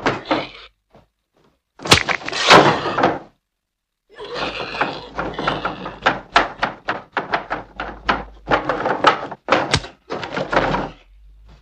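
A heavy thunk about two seconds in as a sledgehammer strikes a man, then, after a short silence, a long run of irregular knocks and scrapes as the body twitches and is dragged across a wooden floor.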